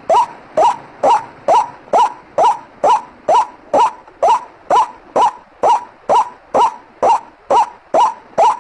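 White-breasted waterhen (ruak-ruak) call played as a bird-lure recording: a steady string of short, rising 'kwak' notes, about two a second, with no pause.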